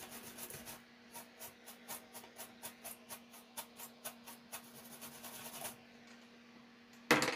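Small stiff brush scrubbing the solder side of a circuit board in quick strokes, about four a second, to clean the reworked solder joints. The scrubbing stops nearly six seconds in, and a short loud clatter comes near the end.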